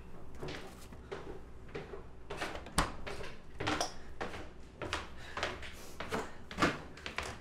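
A string of short knocks and clicks, roughly one to two a second and uneven, from things being handled at a refrigerator door, over a low steady hum.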